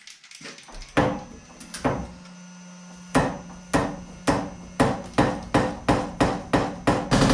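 Power hammer striking sheet metal over a steady motor hum: two single blows, then repeated blows that speed up from about two a second until, near the end, they run together into continuous rapid hammering.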